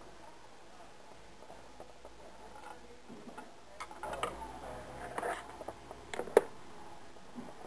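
Hand work on the sharpener's parts and cables: after a quiet start, a few scattered clicks and light knocks, the loudest a single sharp click a little past six seconds in.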